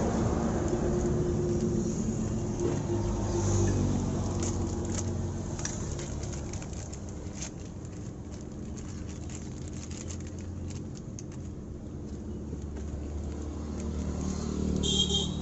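Motorcycle engine running steadily, with scattered light ticks over it, easing off a little about six seconds in. This is the engine noise the mechanic puts down to the timing chain and fixes by fitting a new timing kit.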